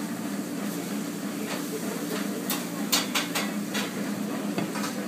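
Eatery background: a steady low hum with dish and cutlery clatter, and a cluster of short sharp clinks and rustles about halfway through.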